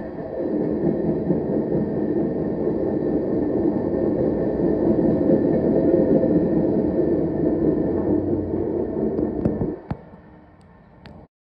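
Freight train of tank cars rolling past, a steady rumble of wheels on rails. It drops away suddenly near the end as the last car clears, leaving a couple of sharp clicks.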